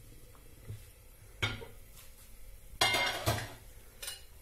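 Metal cookware and utensils being handled: a metal pot lid lifted off and put down, with a sharp clink about a second and a half in, a louder clatter of several ringing metal knocks around three seconds in, and a last small clink near the end.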